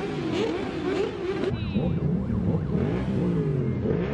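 Several motorcycle engines revving up and down together as a protest convoy rides slowly past, the pitches rising and falling over one another.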